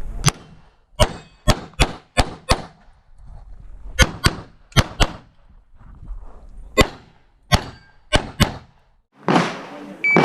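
Pistol shots fired in quick pairs during an IPSC handgun stage, around fifteen sharp shots with short pauses between the groups as the shooter moves between targets.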